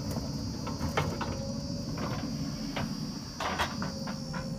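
Diesel engines of a JCB 3DX backhoe loader and a tractor running steadily, with irregular clunks and knocks as the loader's bucket tips soil into the steel tractor trolley. The loudest knocks come about a second in and twice in quick succession past the three-second mark.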